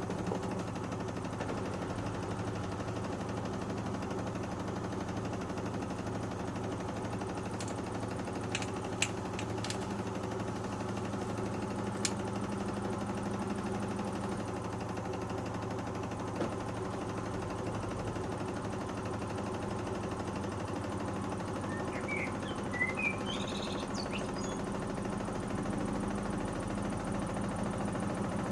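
Panasonic NA-147VB2 inverter washing machine running with a steady hum and rattle from the drum, with a few sharp clicks about a third of the way in. This is the final spin phase, where it has great trouble distributing the unbalanced load before it can reach full speed.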